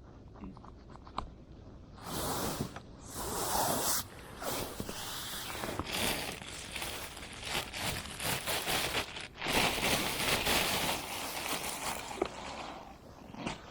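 Rustling and scraping noises close by, coming in irregular bursts from about two seconds in until near the end.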